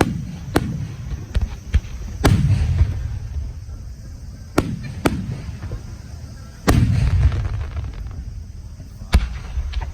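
Aerial firework shells bursting, about nine sharp booms over ten seconds, each trailing off in a low rumble. Some come in quick pairs, and the heaviest come around two and a half and seven seconds in.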